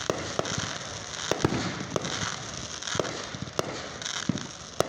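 Aerial fireworks going off: a steady crackle with sharp bangs every half second to a second.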